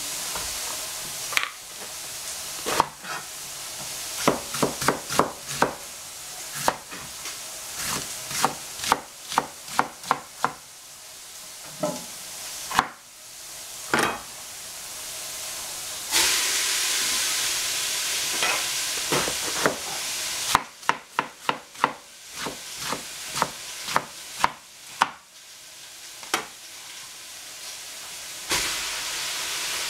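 Tofu sizzling in a frying pan, the hiss swelling for a few seconds in the middle, with runs of sharp knocks from a knife chopping cabbage on a cutting board.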